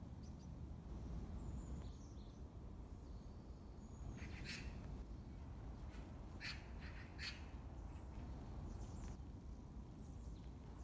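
Faint outdoor background with a few bird calls: brief calls about four and a half seconds in and again a few times between six and a half and seven and a half seconds, with thin high chirps in the first few seconds.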